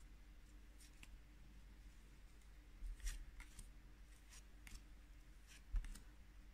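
Faint scrapes and flicks of a stack of Pokémon trading cards being handled, each card slid off the front and moved to the back in turn. There are irregular light ticks, the loudest a little under halfway through and again near the end.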